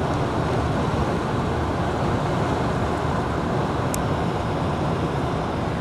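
Steady road and wind noise of a car driving along a highway, heard from inside the cabin, with one brief high tick about four seconds in.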